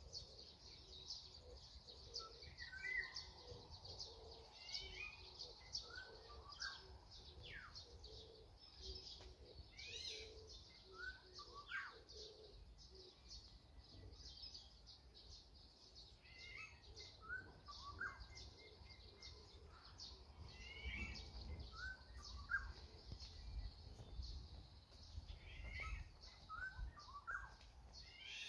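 Wild birds singing: short fluty whistled phrases of black-naped orioles, a pair calling back and forth, over continuous high chirping of small birds.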